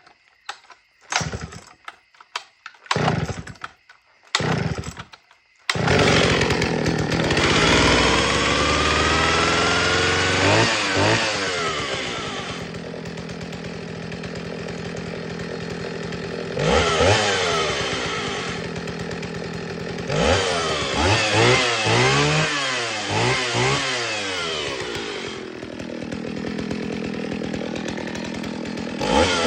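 Vintage Jonsered 621 two-stroke chainsaw pull-started: a few short pulls, then it catches about six seconds in and runs loudly on fast idle. Its speed drops after a few seconds, then it is revved up and down several times, running well but, to the owner, probably a little rich on the high jet.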